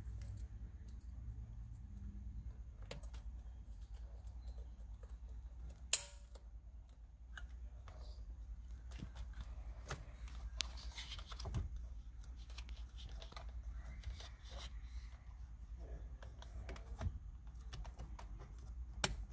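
Hands handling a steering-wheel airbag module and plugging its plastic wiring connectors together: scattered small clicks and rustles, with a sharp click about six seconds in and another near the end, over a low steady hum.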